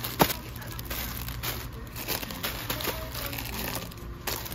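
Plastic-wrapped instant noodle packets crinkling as they are handled and put into a plastic shopping basket. A sharp click comes about a quarter second in, and there is a low steady hum underneath.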